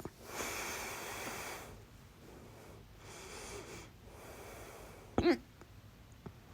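A woman's loud hiccup just after five seconds in: a short, sharp voiced 'hic' that rises in pitch. Two long breaths come before it, with a small click at the start and a fainter one near the end.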